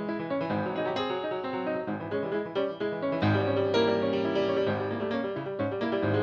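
Solo piano music: quick runs of notes over low bass notes that recur every second or so.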